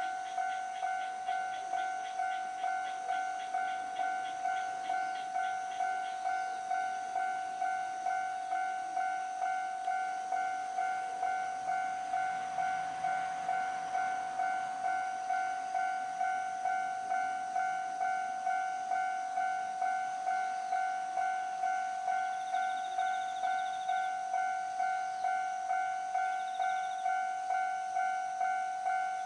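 Japanese level-crossing warning bell ringing, a steady electronic clang repeated about one and a half times a second. Around the middle, a JR East E531 series electric train passes, adding a rush of running noise under the bell.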